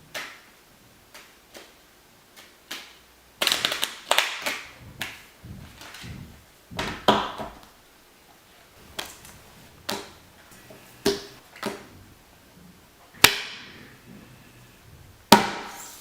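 Playing cards being shuffled and dealt onto a table: irregular sharp snaps and flicks, with a few louder swishes.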